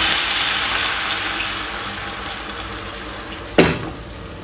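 Chicken broth poured into a hot frying pan of fried onions, hissing loudly as it hits the pan and slowly fading to a quieter simmer. A single sharp knock about three and a half seconds in, as a wooden spatula stirs the pan.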